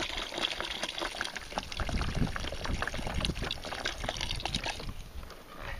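A thin stream of water pouring into a plastic bucket onto a slab of pressed sphagnum moss, splashing and trickling; it tapers off and stops near the end.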